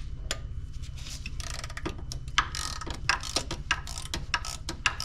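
Hand ratchet clicking in quick, uneven runs as the E14 Torx bolt holding the hydraulic drive-belt tensioner is backed out.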